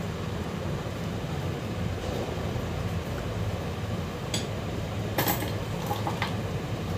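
A steady low mechanical hum, with a few light clicks of small metal tools on the phone board about four to six seconds in.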